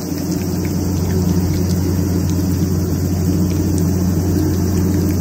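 Steady low mechanical hum, like a running engine. Faint small clicks of a cat chewing wet food from a metal bowl sit on top.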